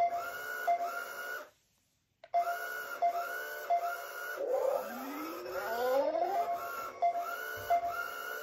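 Thinkway U-Command Wall-E robot toy playing its electronic recharge sound effects through its small speaker: rising power-up swoops and short repeated beeping tones in a looping pattern, with a brief break about a second and a half in.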